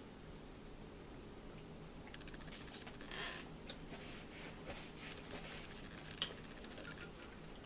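Small table noises during a meal: a fork clicking sharply on a plate, twice most loudly, among lighter taps. A paper napkin rustles about three seconds in.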